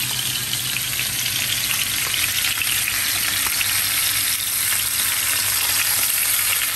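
Seasoned chuck roast searing in oil in a hot skillet: a steady sizzle with fine crackling, growing a little louder about two seconds in as tongs turn the meat.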